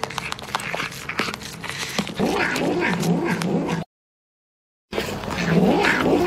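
Cats eating and vocalising as they chew: sharp chewing clicks at first, then from about two seconds in a run of short, wavering growly mews between bites. The sound drops out completely for about a second, then a second cat carries on with the same vocal eating noises.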